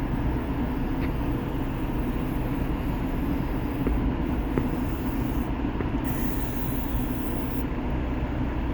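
Steady road and engine noise of a moving car heard from inside the cabin: an even low rumble with no break.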